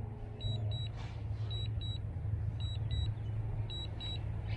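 Drone remote controller giving short double beeps about once a second, the alert it sounds while the aircraft is on return-to-home, over a steady low rumble.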